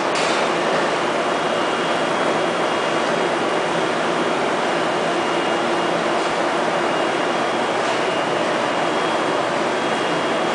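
Steady, even roar of a veneer dryer line and its automatic veneer feeder running, with a faint high whine in places.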